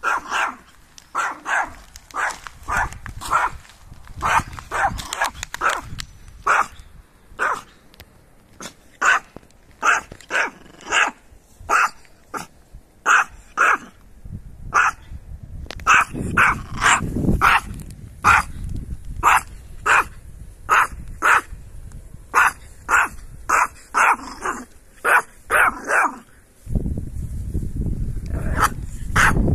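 Yorkshire terrier barking over and over in short barks, about one to two a second, with a brief pause around the middle. A low rumbling noise sets in near the end.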